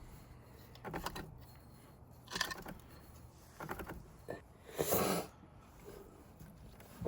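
A few short knocks and clinks of tools and metal parts being handled, with one longer, louder rushing scrape about five seconds in.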